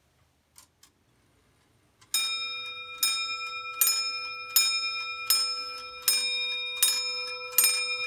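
Antique clock movement striking on its dome bell: eight even hammer strokes about three quarters of a second apart, each ringing on into the next. Two faint clicks come just before the first stroke.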